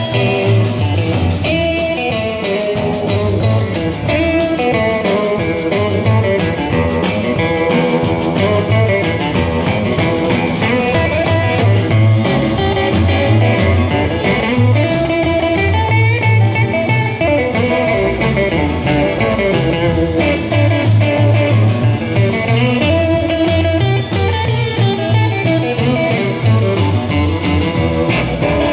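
Live blues band playing an instrumental: a gold-top electric guitar takes the lead over upright bass and drums.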